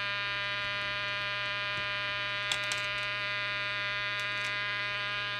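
Jesan KT002 CB walkie-talkie's audio stage oscillating: a steady buzz with a low fundamental and many overtones, with a few faint clicks in the middle. This audio instability racket is, in the servicer's view, a sign of faulty capacitors.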